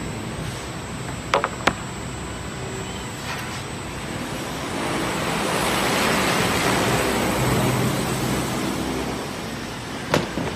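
Steady workshop machinery noise that swells into a louder hiss about halfway through, then eases off, with a couple of sharp clacks about a second in and another near the end.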